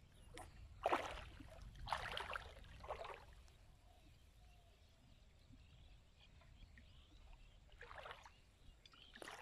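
Small splashes and sloshes of shallow marsh water as hands and a fishing net are worked at the surface: a few short ones about a second in and around two and three seconds, then two more near the end.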